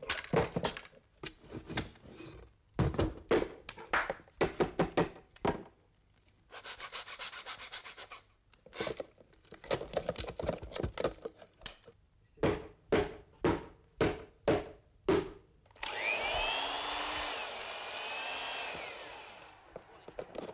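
Cartoon sound effects: a run of sharp wooden knocks and clatter, broken by a short rasping rub about seven seconds in. Near the end comes a few seconds of steady hissing noise with wavering whistle-like tones.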